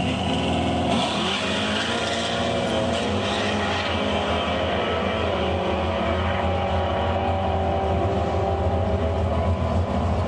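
Chevrolet Camaro drag car launching about a second in and running at full throttle down the strip, its engine pitch wavering as it pulls through the gears, on a quarter-mile pass timed at about 9.6 seconds.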